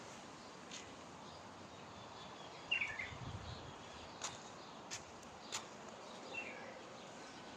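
Faint steady background noise with two short high chirps, one about three seconds in and a weaker one near the end, and a few sharp clicks in between.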